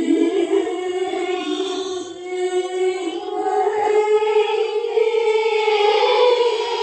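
A little girl's voice singing a slow, eerie horror-film song in long held notes, the pitch stepping up about halfway through.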